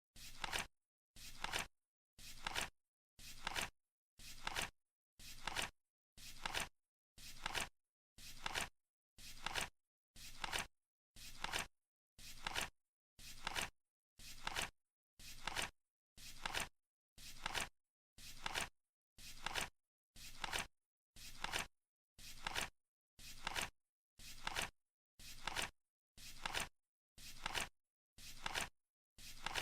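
Flip-clock countdown sound effect: a card flipping over once a second in a steady, even rhythm, each flip swelling briefly to a sharp snap and dying away.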